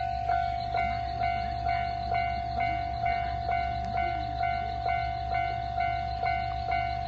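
Japanese railway level-crossing alarm ringing its repeated electronic 'kan-kan' strikes, about two a second. A second, higher-pitched alarm tone joins in about a second in. A steady low rumble runs underneath.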